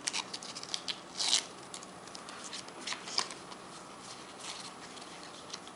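A Panini sticker packet being torn open and the stickers handled: paper crackling and rustling with quick clicks, densest in the first second and a half, with another short burst about three seconds in.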